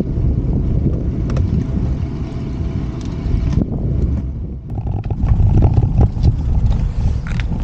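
Wind buffeting the microphone of a bike-mounted camera while cycling, with tyre and road noise. The sound shifts a little past halfway, with scattered clicks and rattles.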